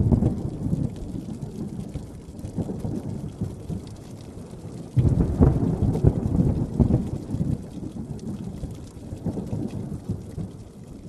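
Thunder rolling over steady rain: one deep rumble already fading, then a second breaking suddenly about five seconds in and rumbling away over several seconds.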